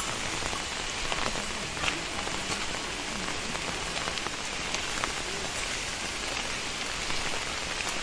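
Steady rain falling on foliage and the road, with scattered drops ticking.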